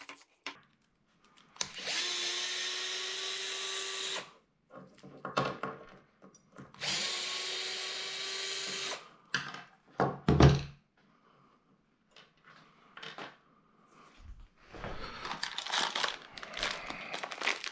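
A small power drill/driver runs twice, each run a steady whir of about two and a half seconds with a slightly rising pitch, followed by light clicks and a knock of parts being handled. Near the end comes the crinkling of plastic packaging.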